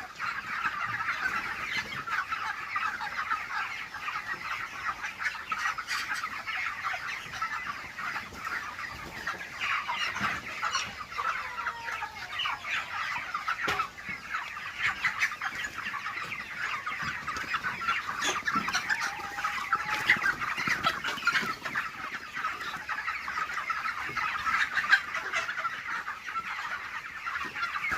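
A large flock of broiler chickens, about six weeks old, clucking and calling all at once with many voices overlapping, and the odd louder call standing out.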